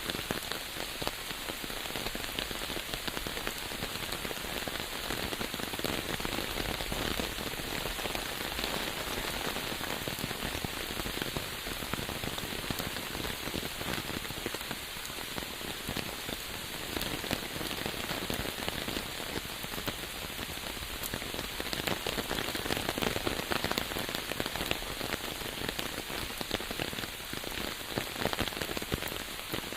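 Steady rain falling on a surface, a dense patter of many fine drop ticks.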